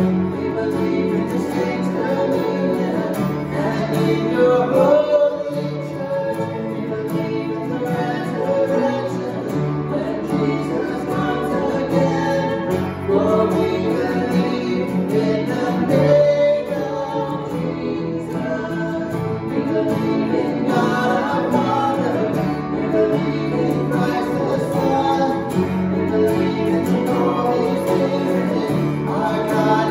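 A worship song: a man singing to his own acoustic guitar, with upright piano accompaniment, at an even tempo and steady volume.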